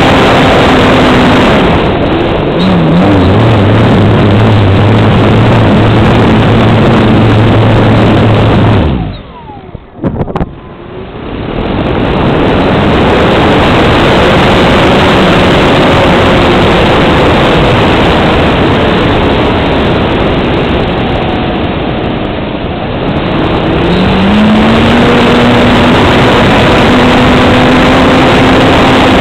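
Onboard sound of an RC Sukhoi Su-26 aerobatic model in flight: its engine and propeller running loud. The throttle eases back a couple of seconds in, is cut almost to nothing for about three seconds a third of the way through, then opens up again; it eases off once more later and climbs back in pitch near the end.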